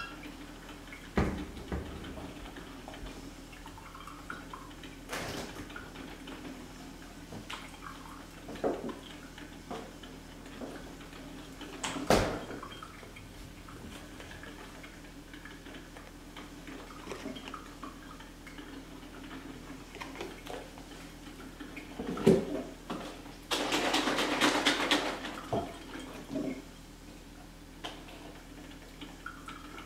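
Kitchen handling sounds while making coffee: scattered knocks and clunks of cartons and a coffee carafe being picked up and set down on a granite counter. About two-thirds of the way through comes a loud rushing sound lasting about two seconds.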